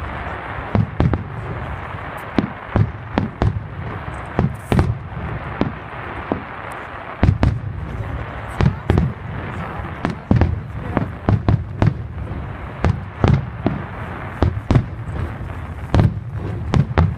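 Fireworks going off in a steady barrage: many sharp bangs and crackles, often several a second, over a continuous hiss.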